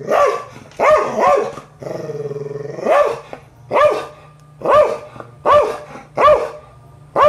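Border Collie barking in warning at a cat: about nine sharp single barks, spaced roughly a second apart, with one longer drawn-out call of about a second around two seconds in.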